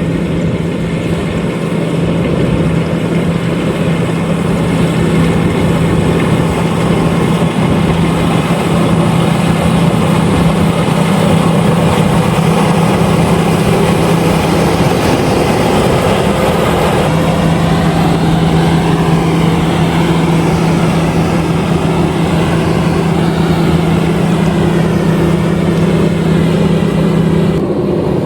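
LOVOL RG130EVO combine harvester running steadily under load while harvesting rice: a constant engine drone with the rushing noise of its threshing machinery. The drone briefly drops out about halfway through, and the sound changes abruptly just before the end.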